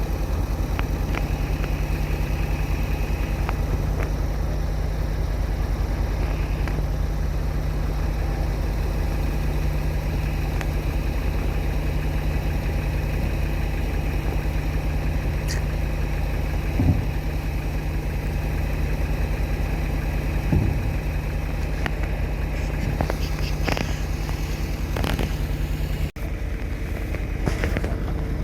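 Vehicle engine idling steadily, with a few short knocks and clanks in the middle and more towards the end.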